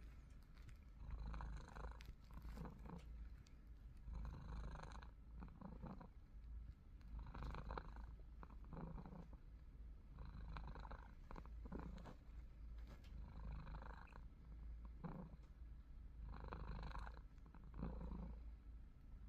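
A pet cat snoring faintly in its sleep: soft, rhythmic snoring breaths that come round about once every three seconds.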